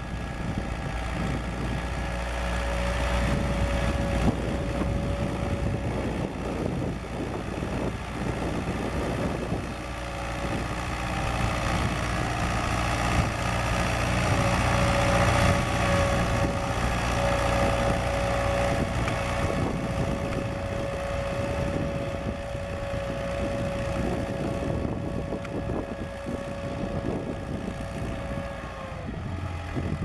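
David Brown 990 Selectamatic tractor's four-cylinder diesel engine running steadily as it pulls a Ransomes three-furrow plough. It grows louder as the tractor passes close about halfway through, then eases off as it pulls away.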